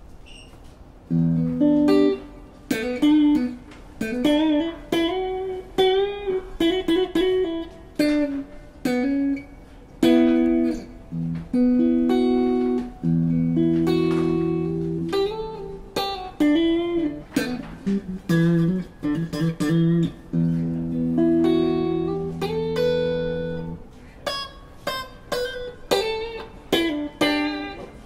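A PRS DGT electric guitar played through a Mesa Rectoverb 25 combo amp. It mixes held chords with quick picked single-note runs, with short gaps between phrases.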